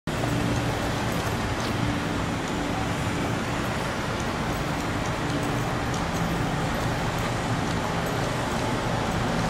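Ise Railway diesel railcar's engine running steadily: a low hum made of several steady tones over an even rumble.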